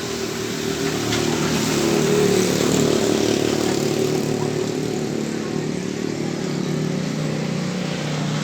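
An engine running steadily, getting louder over the first couple of seconds and then holding an even note.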